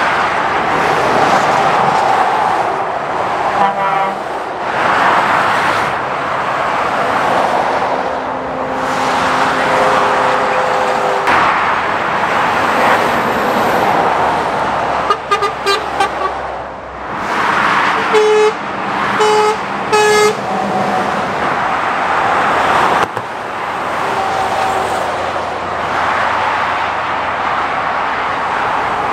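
Steady motorway traffic rushing past, with a vehicle horn sounded several times: a short toot about four seconds in, a quick string of short toots around the middle, then three short blasts in a row.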